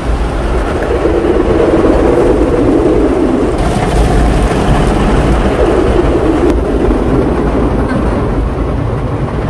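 Automatic car wash heard from inside the car's cabin: rotating brushes scrubbing over the windshield and body while water sprays onto the glass, a loud, steady wash of noise with a low rumble.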